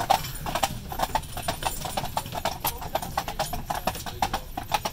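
A pair of harnessed draft horses pulling a carriage at a walk, their hooves clip-clopping on a paved road in an uneven run of several hoofbeats a second.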